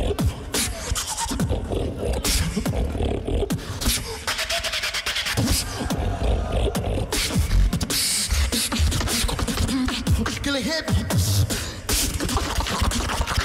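A beatboxer performing a fast battle routine into a microphone through a PA: dense, rhythmic kick, snare and click sounds over deep bass.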